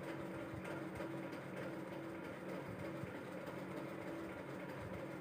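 Faint, steady low hum of background room noise, with no distinct events.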